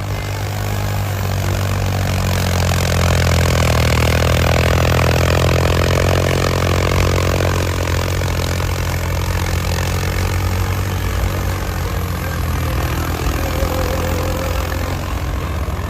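Heavy vehicle engine running steadily, growing louder a few seconds in and then easing back to a steady level.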